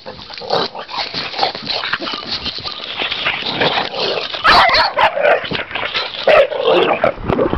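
Boxer dogs playing rough at close range, with excited yips, whimpers and short barks, getting louder about halfway through.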